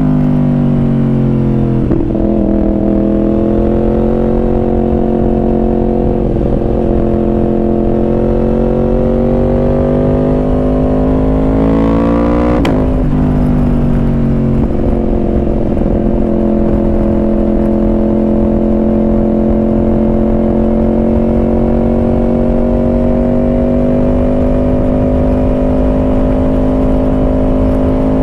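Yamaha R1's inline-four engine heard from on board while riding: revs falling, a jump in revs about two seconds in like a downshift, then a long pull with rising pitch until an upshift about halfway through, after which it cruises with the pitch creeping slowly up. A steady low rumble of wind and road noise runs under it.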